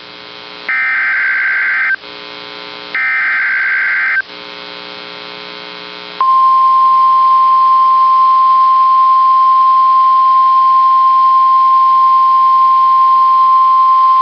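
NOAA Weather Radio emergency alert broadcast. Two SAME digital header bursts, each a harsh buzzing warble about a second long, with a low hum between them, are followed about six seconds in by the steady 1050 Hz warning alarm tone. That tone is held for about nine seconds and signals that a new warning is about to be read.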